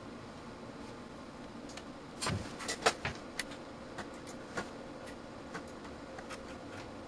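A quick cluster of sharp clicks and small knocks about two to three seconds in, then a few lighter scattered ticks, over faint steady background noise.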